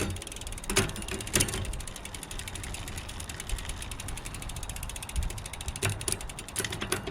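Bicycle rear hub's freehub pawls ticking rapidly as the wheel and 8-speed cassette spin, with a few louder clicks from the drivetrain.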